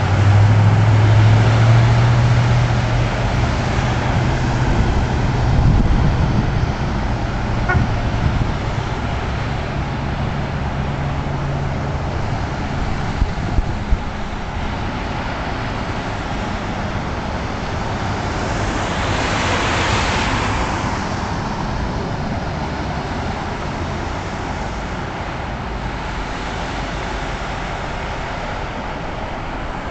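Cars driving through a flooded street, tyres hissing and splashing through standing water. A low engine drone runs through the first twelve seconds or so, and a louder vehicle passes with a swelling wash of spray noise about twenty seconds in.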